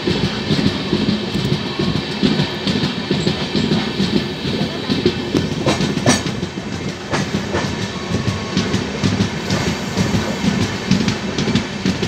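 A moving passenger train heard from its open coach doorway: a steady rolling rumble with wheels clattering over the rail joints, and a few sharper clacks about halfway through.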